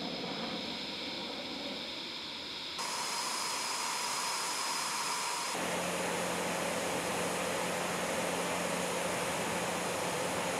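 Eurofighter Typhoon jet noise: a steady rushing hiss with a faint steady whine under it. The sound changes abruptly twice, about three and about six seconds in, where the shots are cut together.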